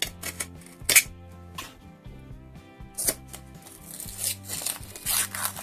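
A utility knife slitting the paper seal on a clear plastic box: a few sharp clicks and scrapes, the loudest about a second in. From about three seconds in, the paper label is peeled and torn off the plastic with a scratchy rustle. Soft background music plays underneath.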